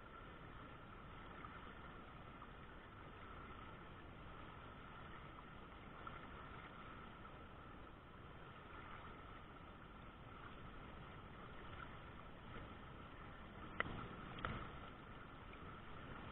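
River current rushing steadily over shallow whitewater riffles, with two sharp clicks a bit under a second apart near the end.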